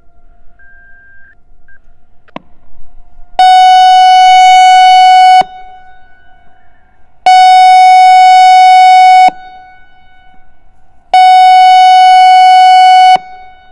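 ASC I-Force 1600 electronic outdoor warning siren sounding its pulse signal. There are three loud, steady tone blasts of about two seconds each, about two seconds apart, with the tone lingering faintly between them. It marks the weekly automatic test, which goes on to a spoken message.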